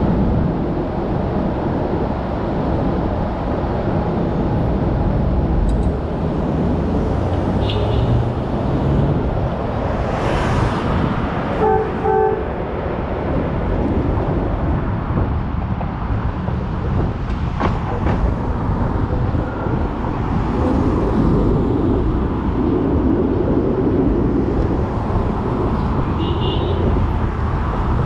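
Heritage streetcar running along street-running rails with a steady low rumble of wheels and motor, and a brief horn-like toot about twelve seconds in.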